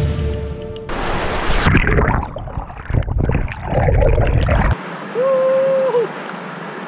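Fast-flowing mountain river water: first an irregular, muffled churning as heard from under the surface, then, after a sudden cut a little over halfway through, a steady rush of the current heard above water. Over the rush come two short pitched tones, the first about a second long, the second brief.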